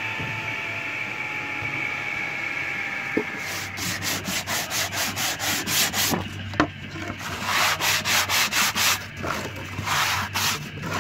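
A table saw running down, its whine slowly falling in pitch, then from about three seconds in quick rasping strokes of a small hand plane shaving the cut rim of a wooden box, about three a second, in short runs with brief pauses.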